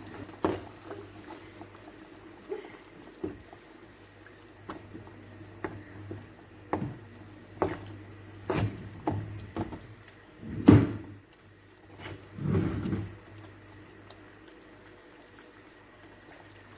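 A spoon stirring a pot of frying palm oil, pepper and crayfish, knocking and scraping against the pot in a run of irregular clinks. The loudest knock comes about two-thirds of the way in, with a longer scrape just after.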